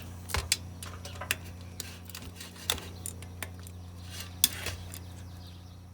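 Metal hand tools clinking against a lawnmower engine as its 10 mm bolts are undone: irregular sharp clinks and clicks, a few of them louder, over a steady low hum.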